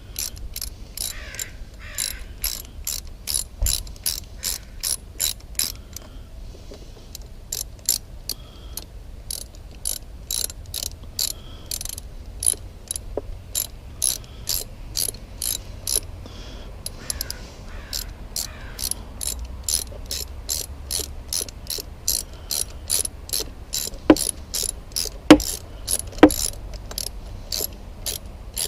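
Hand ratchet clicking in runs, about two to three clicks a second, as the fuel pump's mounting bolts are tightened. There are a few louder knocks near the end.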